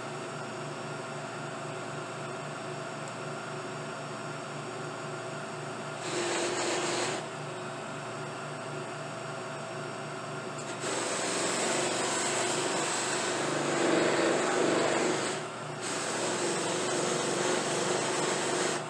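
Buffing machine running steadily with its felt buffing wheels spinning. A dyed briar pipe is pressed against a wheel briefly about six seconds in, then at length through the second half with one short break, giving a louder rushing whir as the wood is buffed.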